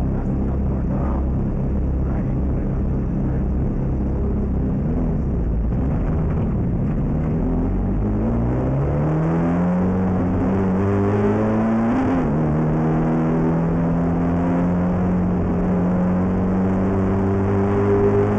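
Ferrari F430 GT race car's V8 engine, heard from inside the cabin, running at low revs and then pulling away with the revs rising. It upshifts with a sudden drop in pitch about twelve seconds in, then climbs slowly again.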